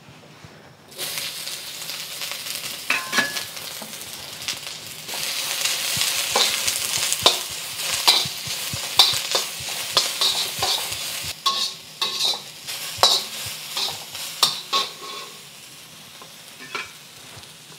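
Sliced shallots sizzling in hot oil in a wok. The sizzle starts about a second in and grows louder around five seconds in, with repeated scrapes and taps of the stirring utensil against the wok. It dies down near the end.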